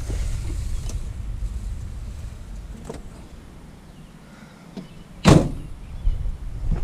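A vehicle door shutting once with a loud slam about five seconds in, over a low steady rumble of the vehicle.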